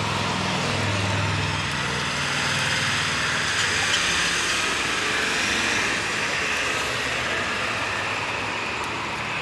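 Steady motor-vehicle noise: a low engine hum with a rushing road hiss that swells through the middle and slowly fades.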